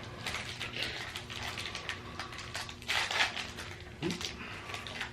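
Irregular rustling and crinkling of a plastic snack wrapper being handled, with a louder crinkle about three seconds in.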